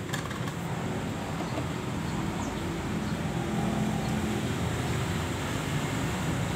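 Tasco two-stroke brush cutter engine running steadily, a little louder about three to four seconds in.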